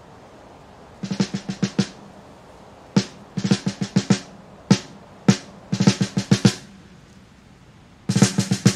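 Opening of a rock song: a drum kit alone, mostly snare, playing short rolls and fills in scattered bursts of quick strokes. The full band comes in near the end.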